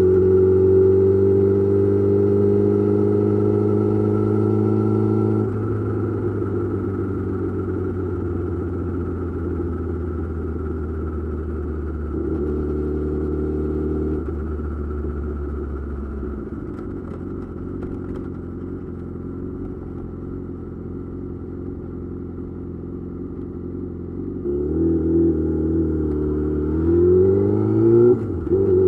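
Yamaha YZF-R6's inline-four engine running through an M4 GP slip-on exhaust. It holds steady throttle, then rolls off and settles to a lower steady note for several seconds. Near the end it accelerates with a rising pitch, broken by a quick drop as it shifts up.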